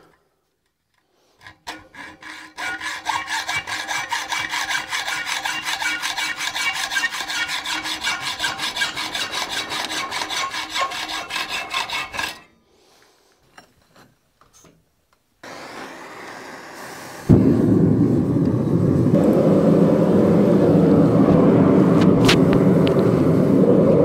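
A hand hacksaw cuts a 3/8-inch square steel bar clamped in a vise, with rapid, even strokes for about ten seconds. After a pause, a gas forge's burner comes on, quiet at first, then louder about two seconds later, and runs with a steady rushing noise, louder than the sawing.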